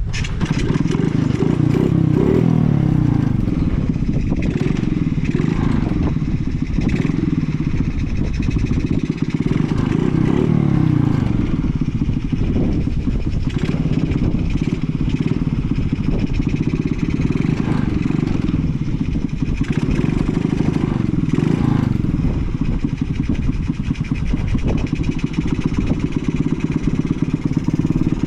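Honda Jazz 50's small single-cylinder four-stroke engine catching and then running steadily at a fast idle, its pitch wavering slightly. It runs evenly with no abnormal noises.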